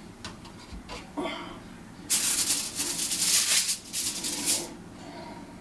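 Aluminium foil rustling and crinkling in a few quick bursts, loudest from about two seconds in to near the end, with a few small knocks before.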